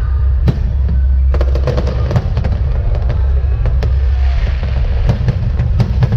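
Aerial fireworks bursting: an irregular string of sharp bangs and crackles, with a quick cluster about a second and a half in, over a steady low rumble.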